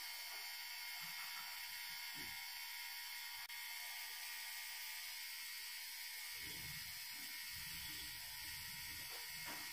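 Small water pump of a DIY smartphone liquid-cooling loop, powered through an OTG cable, running steadily with a faint even whir and hiss as it circulates the coolant. A faint low rumble joins about six seconds in.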